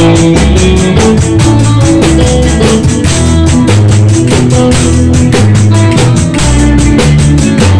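Live band playing, heard close to the drum kit: a fast, steady beat of kick drum, snare and cymbals over bass notes and electric guitar.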